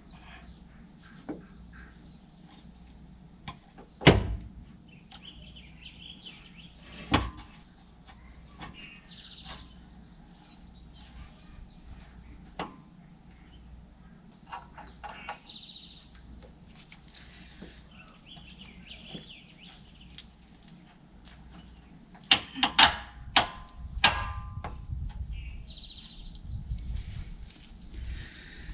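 Scattered sharp knocks and clanks of a replacement rear air strut and hand tools being worked into the rear suspension mounts, with a few loud ones about 4 and 7 seconds in and a close cluster of ringing clanks near the end. Birds chirp now and then in the background.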